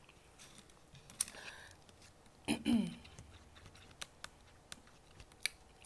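Close-miked eating sounds: sparse faint clicks and smacks of chewing and of fingers picking at food on a plate, with one short vocal murmur falling in pitch about two and a half seconds in.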